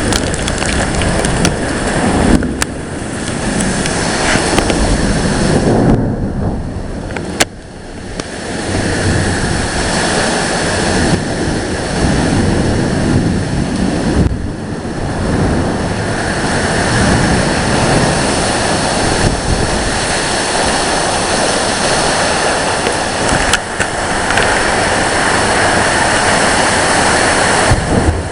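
Strong storm wind gusting and buffeting the microphone, rising and falling in strength, with a brief lull about six seconds in and a single sharp click soon after.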